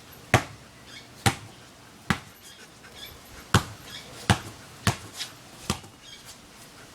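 A basketball bouncing on a hard floor, with about seven sharp, unevenly spaced bounces.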